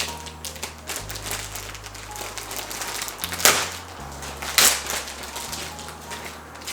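Plastic kit bags and parts runners rustling and clicking as they are handled, with two louder plastic crinkles a little past the middle.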